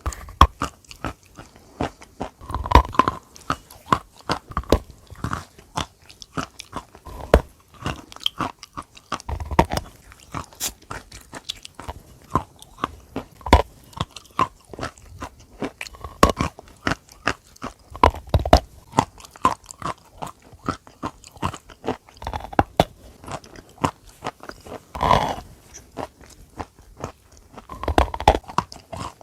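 A person biting and chewing a hard lump of white chalk: a steady run of dry, sharp crunches, with a heavier bite every few seconds.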